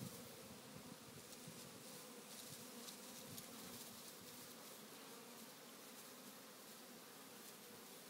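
A swarm of African honey bees buzzing: a faint, steady hum of many wings.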